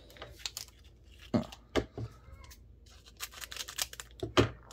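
Foil Pokémon trading card booster pack wrapper crinkling and being torn open in a series of short rips and crackles, loudest about a second and a half in and again near the end.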